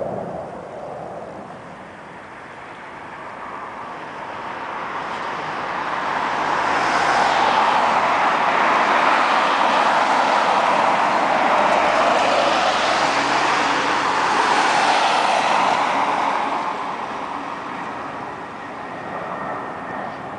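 Jet aircraft engine noise that swells for a few seconds, holds loud for several more, then fades, as an aircraft passes.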